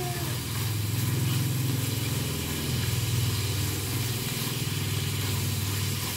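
Pork belly sizzling in a frying pan over a gas burner as it is stirred with chopsticks. Beneath it runs a steady low, finely pulsing hum like an idling engine, the loudest part of the sound.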